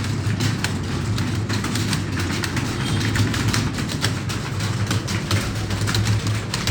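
Many computer keyboards clattering at once as a room of people type fast, a dense irregular patter of key clicks over a steady low hum.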